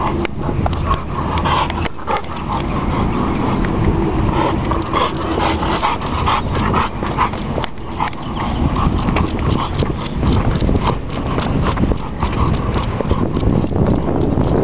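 A pit bull terrier on a leash walk, its breathing and quick steps on a concrete sidewalk heard as rapid uneven ticks, over a steady rumble of wind and handling on the microphone.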